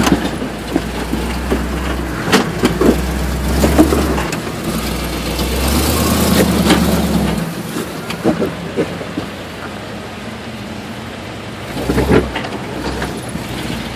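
Off-road rock crawler's engine running slowly as the vehicle crawls over granite boulders, with a low rumble that fades about halfway through. Sharp knocks come about two and four seconds in and again near the end.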